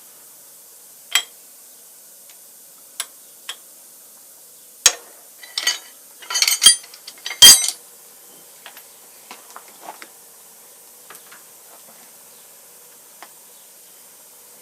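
Metal parts of an old shaper being handled during disassembly, clinking and clanking. A few separate knocks come first, then a quick run of clanks about five to eight seconds in with the loudest in it, then a few light ticks.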